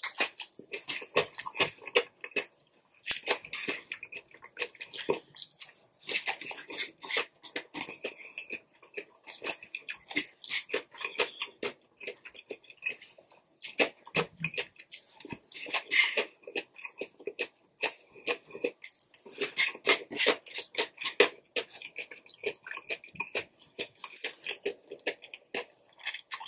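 Close-miked chewing of chow mein noodles: quick runs of small clicks and smacks from the mouth, which pause briefly a couple of times.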